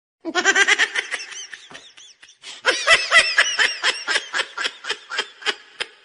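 A person laughing hard in rapid, repeated ha-ha pulses, in two long bouts; the second and louder bout starts about two and a half seconds in.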